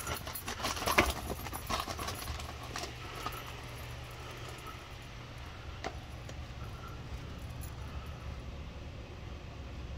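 Kitten's paws stepping over paper sheets and plastic trays: paper rustling and light knocks during the first three seconds, the sharpest about a second in, with a single knock near six seconds. A steady low hum runs underneath.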